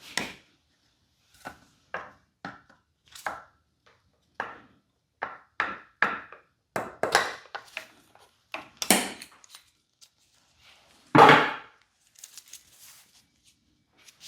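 Hand tools and metal parts knocking and clinking while an outboard motor is taken apart: a series of separate sharp knocks, some with a short ring, and one louder, heavier clunk about eleven seconds in.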